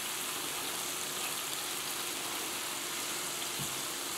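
Butter, oil and white-wine sauce sizzling steadily in a frying pan around a cod fillet, with a faint knock about three and a half seconds in.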